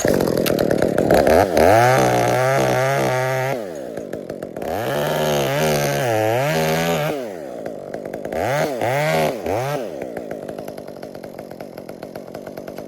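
Chainsaw running at full throttle in three long bursts, its pitch sagging and recovering within each, then dropping back to a lower, steady idle from about ten seconds in.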